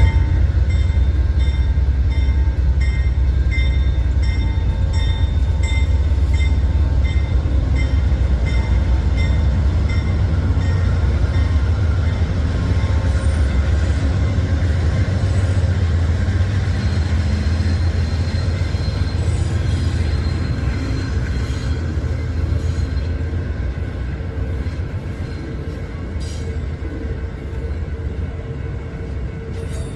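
A train passing close by with a heavy low rumble. For the first dozen seconds there is an even clicking, about two a second, of wheels over rail joints. The sound then fades slowly.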